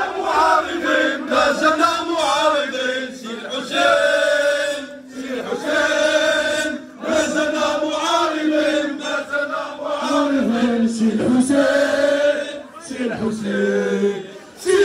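A crowd of many voices chanting together in unison, singing held phrases of a slogan or song with short breaks between them.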